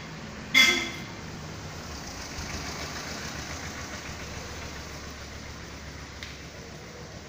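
Small goods-carrier truck's engine running as it drives slowly past, a steady low rumble. A brief loud burst comes about half a second in.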